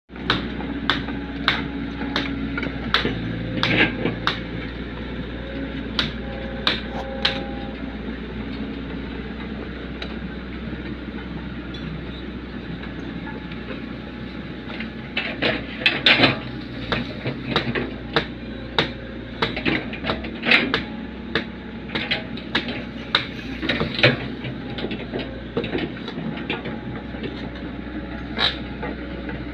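Komatsu excavator's engine running steadily, with irregular sharp metallic clanks and knocks over it. The knocks come more thickly about halfway through.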